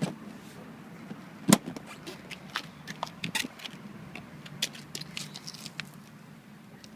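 Metal clicks and clacks of a seat latch being worked by hand, its lever moving the catch. There is one sharp click about a second and a half in, then lighter scattered clicks and rattles, over a low steady hum.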